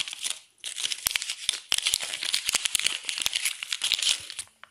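Folded paper leaflet crinkling as it is handled and unfolded: a dense run of crackles with a short lull about half a second in, dying away near the end.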